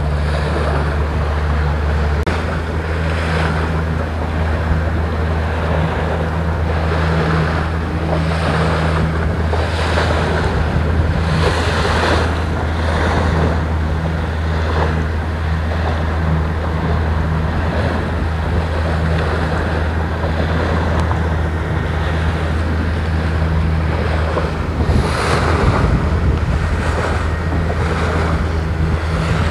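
Small motorboat's engine running steadily with a low drone, under the rush of water against the hull and wind buffeting the microphone, the water noise swelling every second or two.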